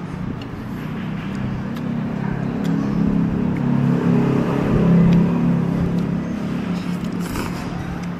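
A motor vehicle's engine passing close by: a steady low hum that grows louder to a peak a little past halfway, then fades again.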